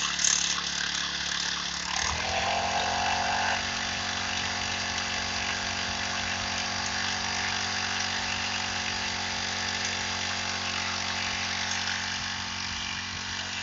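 Small engine of a power sprayer pump running steadily as it feeds a long spray hose. Its pitch rises about two seconds in and then holds steady.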